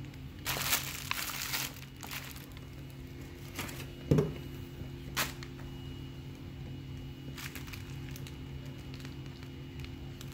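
Plastic packaging and cardboard crinkling as packaged inflatables in plastic bags and on card backings are shuffled by hand: a crinkle lasting about a second near the start, a few light taps, and a louder bump about four seconds in. A steady low hum runs underneath.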